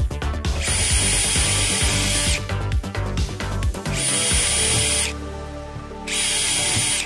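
DeWalt 20V XR cordless drill boring test holes into a delaminated, water-soaked fiberglass boat hull, to see how far the damage extends. The drill runs in three bursts of a second or two each, each with a high whine.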